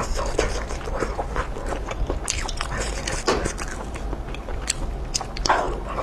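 A person biting and chewing sausage, close-miked, with many small sharp wet mouth clicks throughout.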